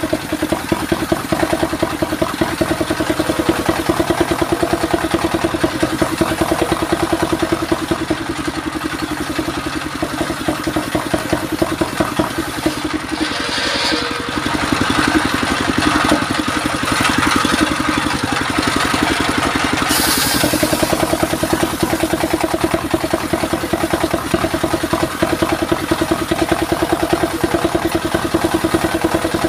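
Stationary engine running steadily with a fast even beat, driving a circular saw bench by belt. About halfway through, the blade rips through a mahogany board, adding a harsher cutting noise that swells for several seconds.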